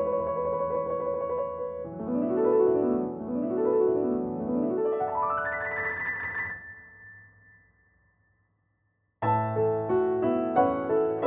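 Background piano music: sustained notes, then repeated rising runs of notes, fading out to silence about two-thirds of the way through, before a new piano passage starts abruptly near the end.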